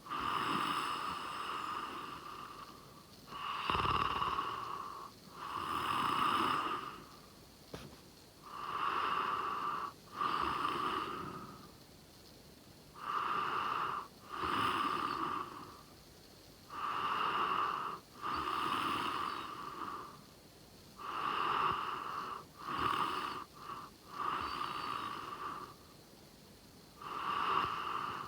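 A sleeping person snoring: rasping snores of a second or two each, mostly coming in pairs, with a new breath roughly every four seconds and short quiet gaps between.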